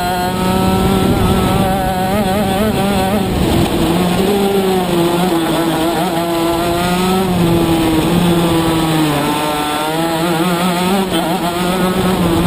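Shifter kart's two-stroke engine running hard on track, close to the microphone, its note climbing and dropping several times as the kart accelerates and slows.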